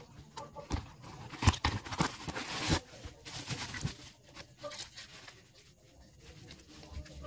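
Plastic packaging and bubble wrap rustling and crinkling as it is handled, with sharp crackles in the first three seconds, then fainter rustling.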